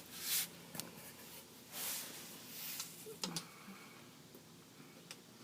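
A socket wrench worked against a stuck oil-pan drain bolt: a few sharp metal clicks and two short hissing noises.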